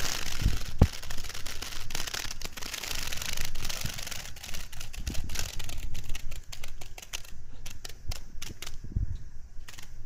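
Bear cicada gripped by a praying mantis, buzzing as it struggles: a dense, harsh rattle for the first few seconds that thins out into scattered clicks.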